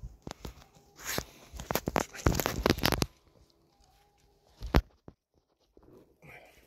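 Rustling, crackling handling noise right at the phone's microphone as a long-haired dog nuzzles and presses its fur against it. It comes in a run of bursts over the first three seconds, with one sharp knock later on.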